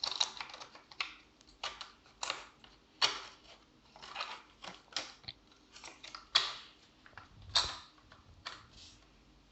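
Irregular sharp clicks and short scrapes of small laptop parts being handled and pushed back into place by hand, a dozen or so over the stretch, with two louder clicks past the middle.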